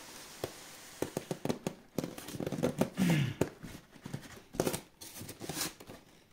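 Expanded polystyrene packing block squeaking and creaking as it is gripped and pulled free of a cardboard box, with a quick run of sharp creaks and scrapes and a short falling squeal about three seconds in.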